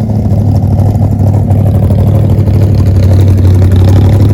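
1969 Ford Falcon XW GTHO's V8 idling, loud and steady.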